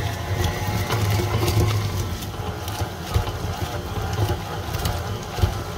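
KitchenAid Classic Plus stand mixer running steadily, its motor humming as the flat beater tosses and shreds cooked chicken breasts in the stainless steel bowl, with scattered knocks from the chicken and beater against the bowl.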